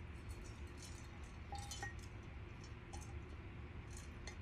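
A few faint small clinks and clicks of tableware, such as a drink tumbler being picked up, over a steady low room hum.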